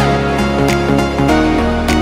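Instrumental background music: sustained notes, with sharp percussive strikes recurring a little more than once a second.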